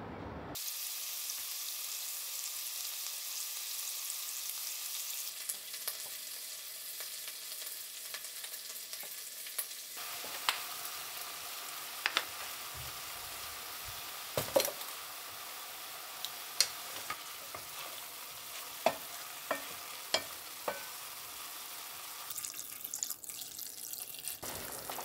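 Chicken drumsticks and daikon radish sizzling in a stainless steel pot as they brown. From about ten seconds in, a utensil clinks against the pot several times as the pieces are stirred and turned.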